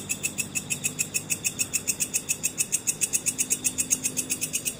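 Night insects chirping in a fast, even, high-pitched pulse, about eight or nine pulses a second.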